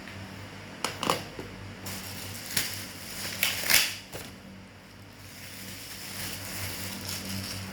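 Handling noises: a few sharp clicks and rustles, the loudest a little past the middle, over a steady low electrical hum.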